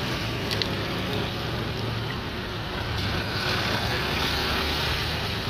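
Road traffic going by steadily, engines and tyre noise, with one louder pass of tyre hiss about three seconds in. Wind buffets the microphone.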